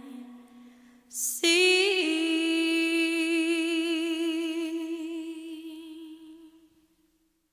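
A solo singing voice. It lets one note fade, takes a quick breath, then holds a long final note with vibrato that dies away to silence as the song ends.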